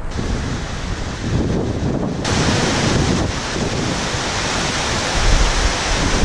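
A loud, steady rushing noise with no pitch or rhythm, which turns brighter and hissier abruptly about two seconds in.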